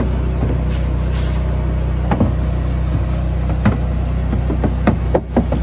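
Steady low hum of a bin-washing trailer rig's engine running, with scattered knocks and clicks as the plastic wheelie bins are handled.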